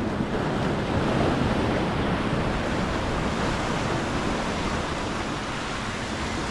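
Surf washing steadily, with wind buffeting the microphone; the rush swells slightly about a second in.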